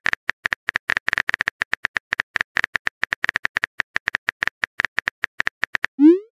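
Rapid on-screen keyboard typing clicks from a texting-story app, short ticks with a slight ringing tone at about eight a second. Near the end comes a quick rising swoosh as the typed message is sent.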